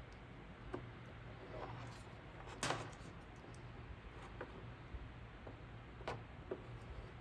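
Light, scattered clicks and taps of a plastic welder's tip and clear filler stick worked against a plastic ATV body panel, about seven in all, the loudest nearly three seconds in, over a faint steady low hum.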